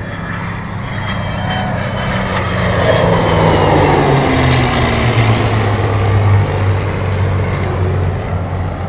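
Heritage Flight formation of an F-22 Raptor, an F-16 and a P-51 Mustang flying past: a heavy engine rumble that swells to a peak midway and eases off, its pitch dropping as the aircraft go by.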